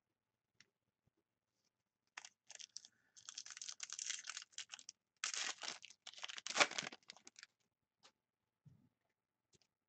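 A hockey card pack's wrapper torn open and crinkled by hand: a run of irregular crackling rips starting about two seconds in, with a brief pause in the middle and the loudest rip shortly before the end.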